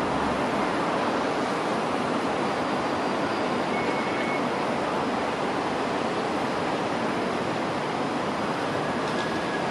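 Hong Kong Light Rail car rolling slowly toward the camera and into a curved junction over a steady rushing noise, with a thin high wheel squeal starting near the end as it takes the curve.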